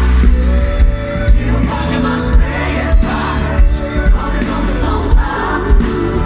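Live pop music played loud through a concert PA: a group of singers in harmony over heavy bass and a steady drum beat.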